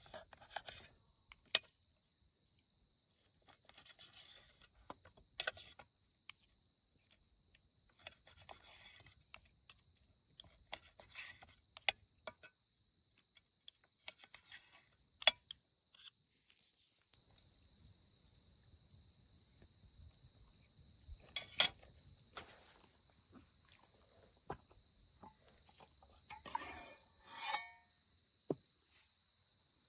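Crickets chirring in a steady high-pitched chorus, with a few sharp clicks and taps and a brief rustle near the end.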